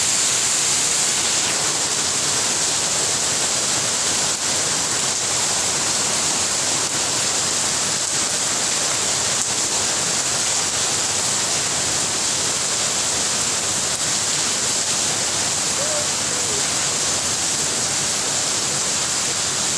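Steady rain falling, an even hiss of water that does not let up.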